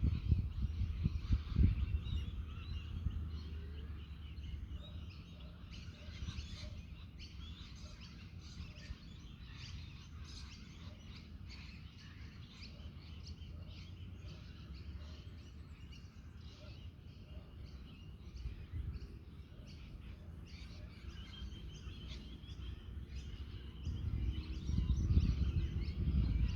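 Many birds chirping and calling, with wind rumbling on the microphone that gusts near the start and again near the end.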